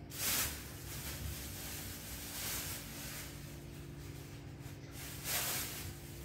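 Low steady room hum with two brief soft rustles, one near the start and one about five seconds in.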